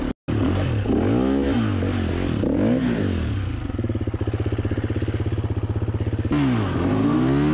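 Gas Gas 350 dirt bike engine revved up and down again and again in short blips, with a steadier, evenly pulsing stretch in the middle, as the bike is worked through a rocky rut. There is a brief gap of silence just after the start.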